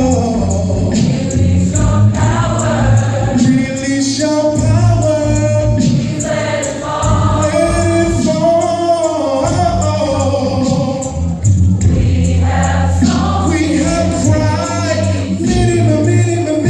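Gospel choir singing with instrumental accompaniment, a steady low bass line and a regular beat beneath the sung notes.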